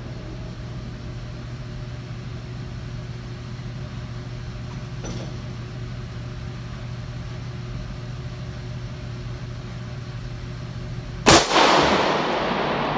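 A single shot from a Smith & Wesson .40 caliber semi-automatic pistol about eleven seconds in, echoing and dying away slowly in the indoor range, over a steady low hum.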